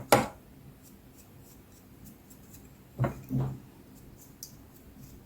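Paintbrush stroking varnish over a glass jar and its napkin motif, faint scratchy strokes, with a sharp knock at the start and two softer knocks about three seconds in.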